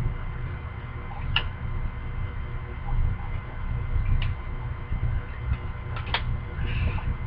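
Hockey trading cards and packs being handled close to the microphone: a few sharp clicks and a short rustle over a steady low rumble.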